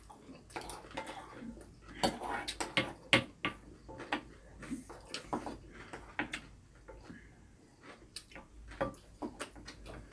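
Wooden spoons and chopsticks tapping and scraping against ceramic bowls while two people eat: many light, irregular clicks.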